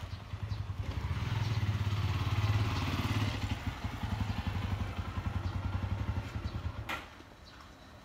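A small engine, like a motorbike's, running with a rapid low pulsing that grows louder toward the middle, then cuts off suddenly about seven seconds in.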